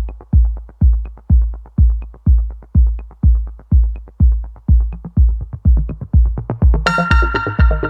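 Electronic dance music with a heavy, steady kick drum at about two beats a second and light ticks between; sustained synth chords come in near the end.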